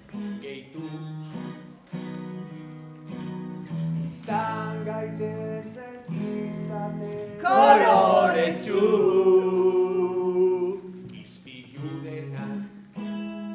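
Live stage music: electric guitar playing sustained notes with singing over it. The singing is loudest around the middle.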